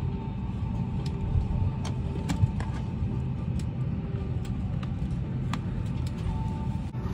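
Steady low hum inside an Airbus A319 cabin on the ground before departure, with a faint steady tone over it and scattered light clicks and knocks, two of them louder in the first few seconds.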